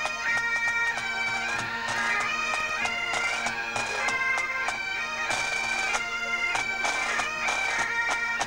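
Highland pipe band playing: bagpipes carry a melody over their steady drone, with snare, tenor and bass drums beating time.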